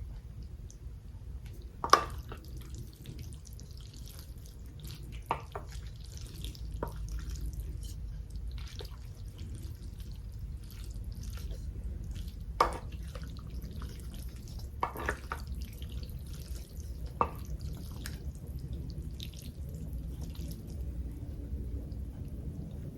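Shredded cheese being spread over chili mac in a baking dish: faint scattered ticks and patter with about six sharper knocks spread through, over a steady low hum.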